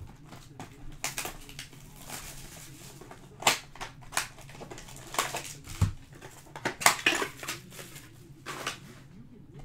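Plastic and foil wrapping on a trading-card hobby box crinkling and tearing as it is handled and opened, in a string of sharp crackles, with one dull thump of cardboard on the table about six seconds in.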